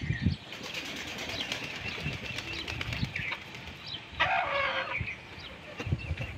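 Chickens flapping their wings in a rapid flutter, with a short, louder chicken squawk about four seconds in.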